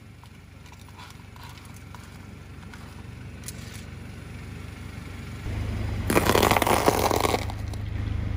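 A car tyre rolls over crunchy cookies and candy-coated chocolates, crushing them with a loud crackling crunch that lasts about a second and a half, over the car's low steady rumble. Before that there are faint clicks of broken plastic mask pieces being handled.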